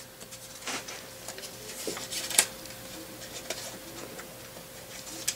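Faint handling sounds: a few soft clicks and rustles as a strip of paper is slipped between a vise parallel and a lathe faceplate and fingers touch the metal. The sharpest click comes about halfway through, over a faint steady hum.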